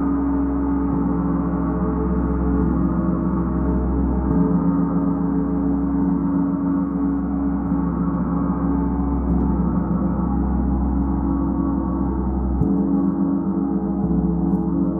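Large gong played continuously with a felt-headed mallet, building a dense, sustained wash of many overlapping tones. The low tones are renewed by fresh strokes about four seconds in and again near the end.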